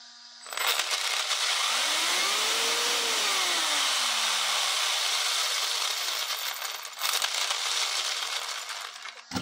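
Brushless inrunner electric motor in an RC touring car spinning the drivetrain on a bench stand: a loud whir of motor, gears and two-speed gearbox that comes on about half a second in. A tone rises and then falls in pitch as the throttle is opened and eased, the noise surges again around seven seconds in and drops away just before the end.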